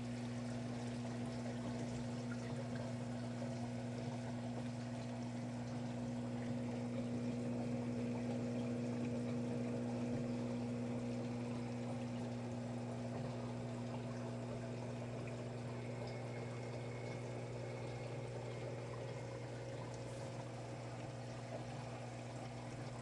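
Aquarium filtration running: water pouring and trickling steadily through the filter, over the constant low hum of a circulation pump.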